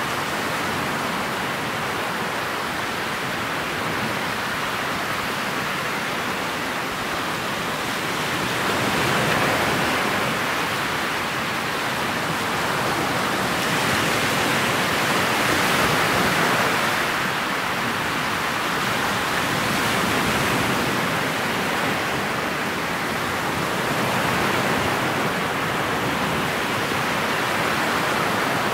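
Steady rushing noise of a motorboat running across choppy water: wind over the bow microphone and water rushing past the hull, swelling and easing every few seconds. No engine note stands out of the rush.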